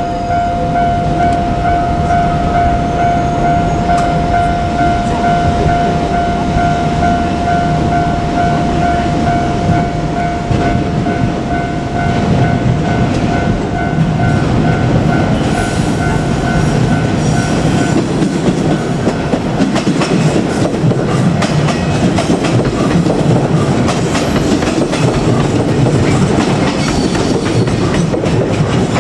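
JR Kyushu 817 series electric train running past, its wheels clacking over the rail joints and the rumble growing about halfway through. A steady high ringing tone sounds over it and stops about two-thirds of the way in.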